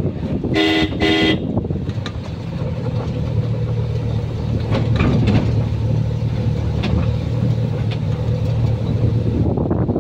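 A vehicle horn toots twice in quick succession about half a second in. A vehicle engine then runs with a steady low drone and road noise, heard from aboard the moving vehicle.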